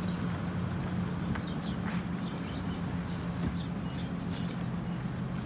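A steady low engine drone, with short high bird chirps scattered over it.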